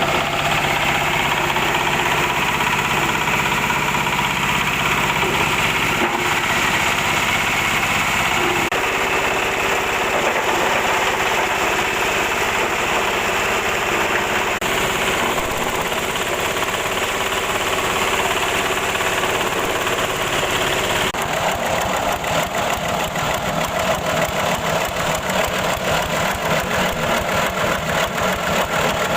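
Multipurpose grass chopper running as a grinder, milling corncobs and corn through a 3 mm screen. It runs steadily and loudly; its sound shifts about nine seconds in, and from about 21 seconds in a fast, even pulsing comes in.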